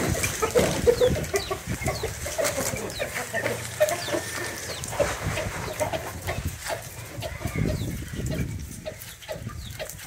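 Chickens clucking, with short high chirps among them; the calls thin out near the end.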